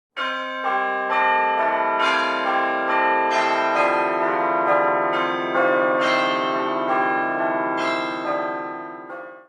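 Bells ringing in a run: struck notes overlapping as they ring on, a new strike about every half second, fading out near the end.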